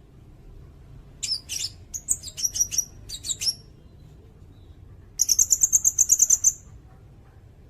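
A sirindet bird singing. First comes a run of short, high chirps, then after a pause a fast, even trill of about ten notes a second lasting just over a second.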